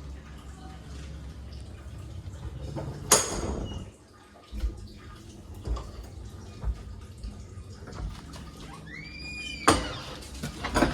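A door fitted with a dead Arrow 303U overhead door closer bangs shut about three seconds in. A few soft thumps follow, then a short squeak and a second loud bang near the end. The closer no longer works, so nothing slows the door.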